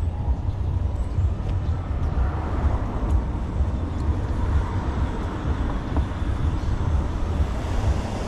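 City street ambience on a walk: a steady low rumble with traffic noise that swells in the middle, as from a vehicle passing on the street.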